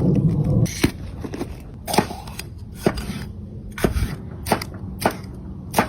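Food being chopped: seven sharp, irregularly spaced knocks, after a low rumble that stops under a second in.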